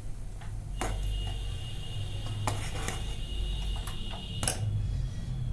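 A metal spoon knocks against a pan a few times while a pot of milk tea is stirred, over a steady low rumble. A thin high tone holds from about a second in until near the end.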